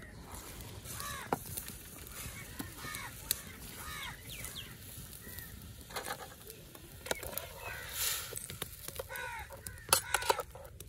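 Crows cawing over and over in short arched calls. Sharp metal clinks of a steel skimmer against a steel cooking pot come through now and then, the loudest cluster near the end.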